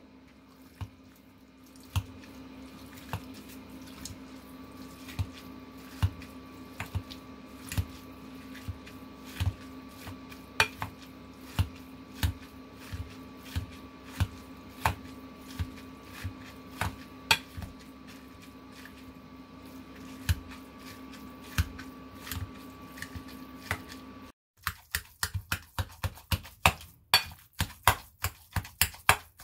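Kitchen dishes and utensils clicking and knocking now and then over a steady appliance hum. Near the end the hum stops abruptly and a fast run of sharp clicks follows.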